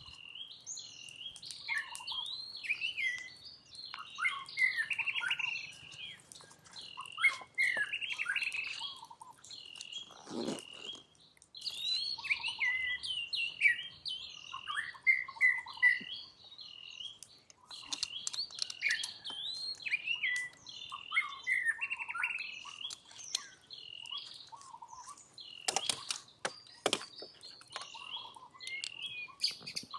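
Many short, high-pitched chirping calls, one after another, with a few clicks and a dull knock in between.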